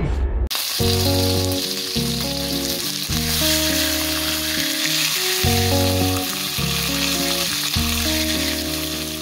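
Skin-on pork belly slab sizzling as it sears in hot oil in a frying pan, starting about half a second in. Background music with repeated bass notes and chords plays under it.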